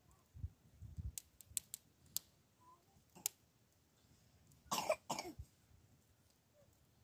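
Scattered light clicks and a few dull knocks, then two quick coughs about five seconds in.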